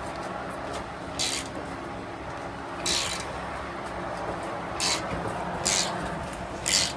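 Five short, sharp hisses spaced a second or two apart, over a low steady background hum.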